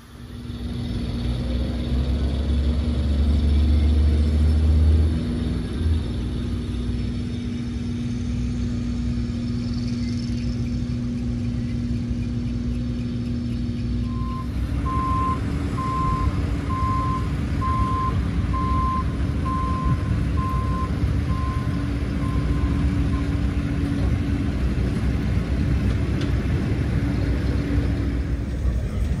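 Motor vehicle noise, with a low rumble that builds over the first few seconds and then settles to a steady hum. Partway through, a vehicle's reversing alarm beeps at an even pace, a little more than once a second, for about eight seconds.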